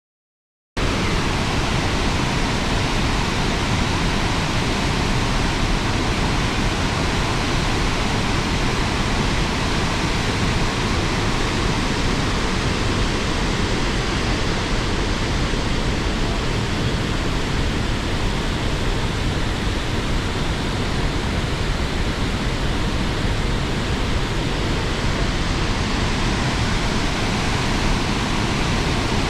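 Waterfall, a steady, loud rush of falling water that cuts in abruptly just under a second in.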